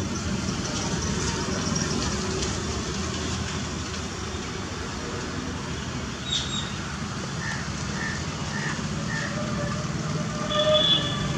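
Steady hum of distant town traffic, with a row of about five short, evenly spaced high bird chirps in the second half and a brief louder high-pitched sound near the end.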